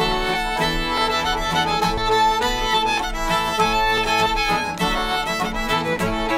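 Instrumental folk tune with a fiddle carrying the melody over a steady beat, the introduction before the singing starts.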